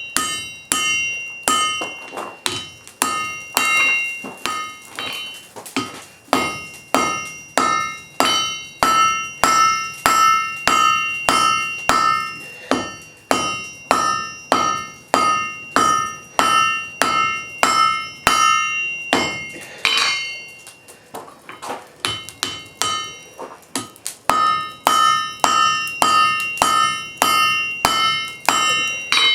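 Blacksmith's hammer striking hot wrought iron on an anvil in a steady rhythm, a little under two blows a second, each blow ringing. This is the steady hammering of drawing the bar out. The blows break off for a few seconds past the middle, with one loud clang, then resume.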